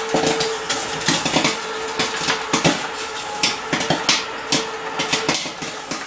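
Popcorn kernels popping in the oiled kettles of two small electric popcorn machines: many sharp, irregular pops, several a second, over a steady hum that stops about five seconds in.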